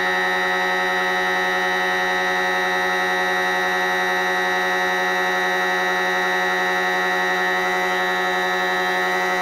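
Husky shop air compressor running steadily with an even, unchanging drone as it pumps up its tank, on a newly replaced pressure switch.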